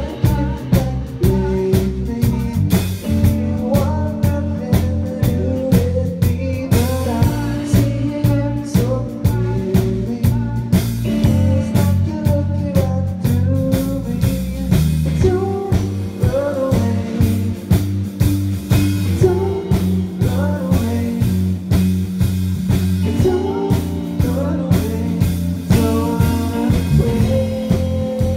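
A rock song played live by a small band: male singing over guitar and drums with a steady beat.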